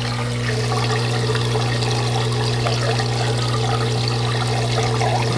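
Aquarium overflow siphon draining water at full flow, a steady splashing and trickling that is still sort of loud, over a constant hum from the running pump.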